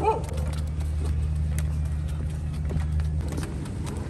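A steady low engine hum that drops away about three seconds in, with scattered light footsteps on stone paving. A dog's yelping bark ends right at the start.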